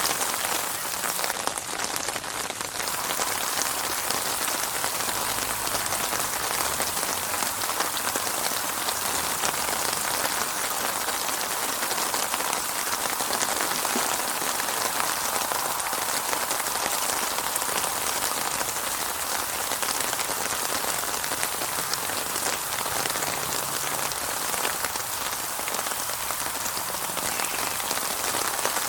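Steady rain falling and pattering on a surface, a dense even hiss of drops with no thunder.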